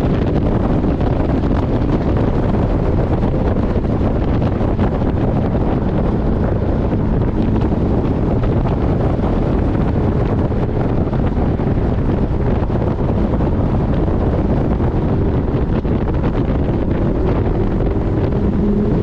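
Porsche 718 Boxster GTS at track speed: heavy wind rush on the onboard microphone, with the car's engine note faint underneath and climbing in pitch near the end.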